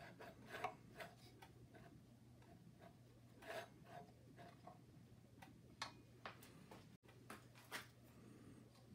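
Faint scattered clicks and light rubbing as hands work a drive belt onto a small air compressor's pulley, over a low steady hum.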